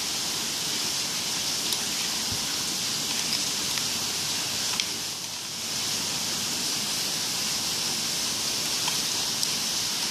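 A steady hiss, with a few faint clicks of a plastic spoon against a glass dish as a clear glue, water and glitter slime mixture is stirred.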